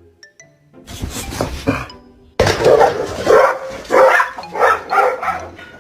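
A dog barking or vocalising in a run of about five loud calls in the second half, over background music, after a rougher noisy stretch near the start.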